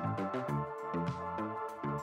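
Electronic background music with a steady beat and a moving bass line.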